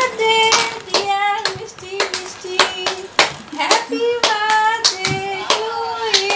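Hands clapping in a steady rhythm, about two claps a second, along with a held, sung-style melody.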